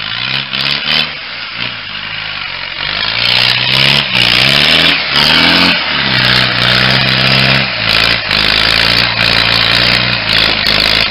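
Land Rover trayback's engine working hard under load in deep mud, the revs rising and falling several times and then holding high and steady. A loud, rushing noise runs over the engine throughout.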